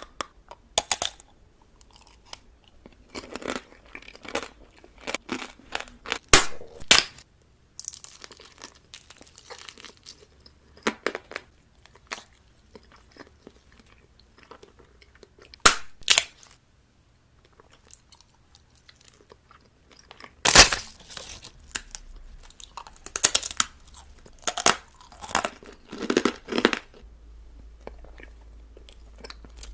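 Crunchy food being bitten and chewed close to the microphone, in irregular clusters of sharp crunches. A few seconds of rustling come about eight seconds in.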